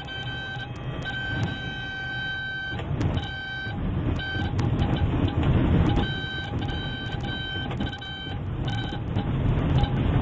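Piper Super Cub's engine running with a loud low rumble in the cockpit, while an electronic warning tone beeps on and off in pulses of uneven length. Scattered sharp clicks sound through it.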